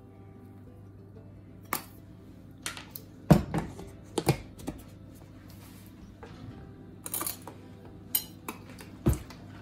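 Metal spoons clinking and knocking against a slow cooker's crock and things on the kitchen counter, a scattered series of sharp knocks with the loudest about three seconds in, then a metal spoon stirring chunks of sweet potato in water, over a faint steady low hum.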